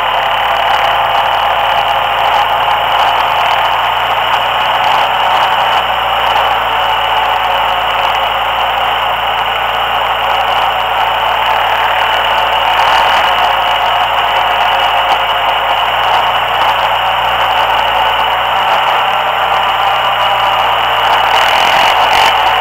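Steady, loud rush of wind and road noise on a camera mounted to a moving ATV-type vehicle, with a faint engine drone underneath.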